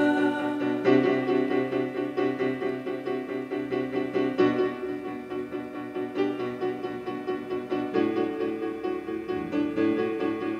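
Instrumental background music led by a keyboard: a quick repeating figure of notes over held chords, the chord changing about every three and a half seconds.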